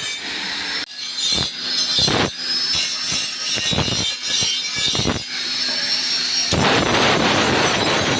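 Steel hoe blade being sharpened at a blacksmith's: a run of short grinding passes over a steady hum, changing at about six and a half seconds to one continuous, rougher grind.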